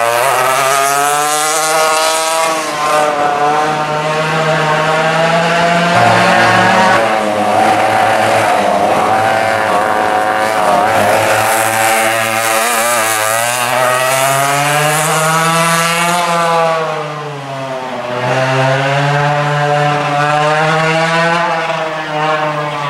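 Twin West Bend 820 two-stroke engines of a vintage racing kart running hard on track, the engine pitch climbing and falling repeatedly as the kart accelerates and backs off through the corners. The sound briefly drops in loudness about three-quarters of the way through, then the engines pick up again.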